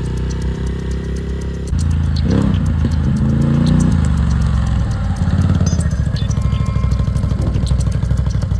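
ATV (quad bike) engine running and revving. Its pitch rises and falls between about two and four seconds in, then from about five seconds it settles into an even, rapid pulsing, with abrupt changes between the passages.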